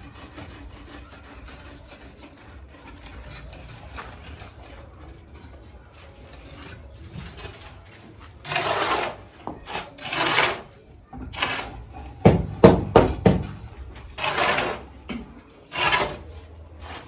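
A series of rough scraping and rubbing strokes, each about half a second to a second long, starting about halfway through after a quieter stretch, with a few low knocks among the loudest ones.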